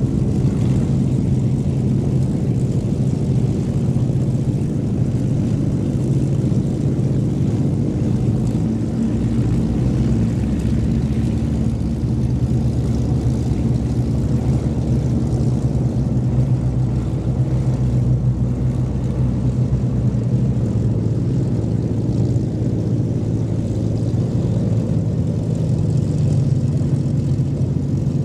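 Supermarine Spitfire V12 piston engines running at low taxiing power, a steady low drone that holds an even pitch.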